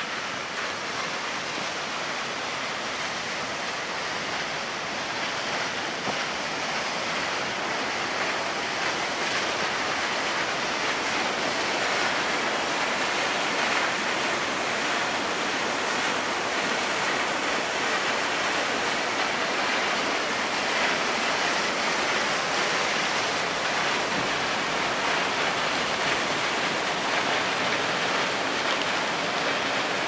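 Tiered mountain waterfall: a steady rush of falling and splashing water, growing slightly louder over the first ten seconds or so.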